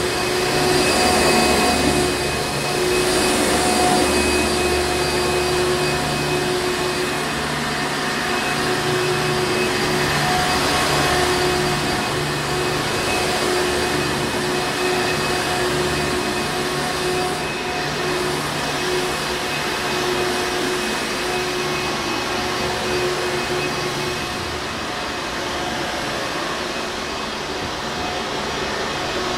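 Hoover Encore Supreme upright vacuum cleaner running steadily: a constant rush of motor and airflow with a steady whine running through it.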